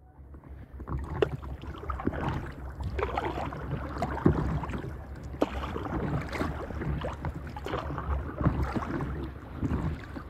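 Water splashing and lapping around an inflatable stand-up paddleboard as it is paddled across a lake, in uneven strokes, with wind rumbling on the microphone.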